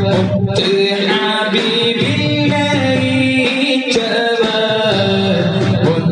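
A man singing an Islamic devotional song in a chant-like style, the melody held and bending, with a brief break about half a second in.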